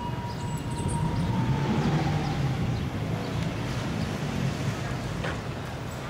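City street traffic, with a motor vehicle's engine rumble swelling as it passes, loudest about two seconds in.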